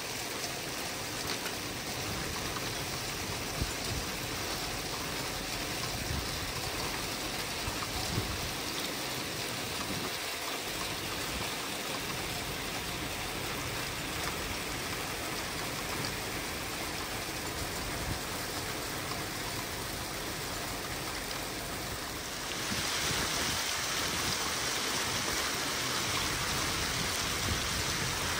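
Hail and rain pelting wet pavement: a dense, steady hiss with a few sharper clicks of single stones. The downpour gets louder and brighter about 22 seconds in.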